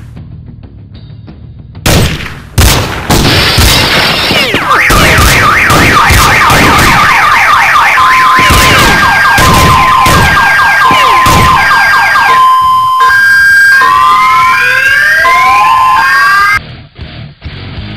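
Gunshots in a parking garage, two sharp bangs and then more shots, set off several car alarms at once. The alarms go through warbling, alternating two-tone and rising whooping patterns, layered over continued shots. The whole din cuts off suddenly near the end, leaving faint music.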